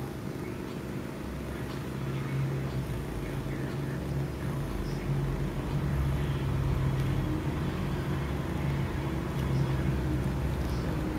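Chinchilla Persian kitten purring: a low steady rumble in stretches of a second or two with short breaks, louder after about two seconds.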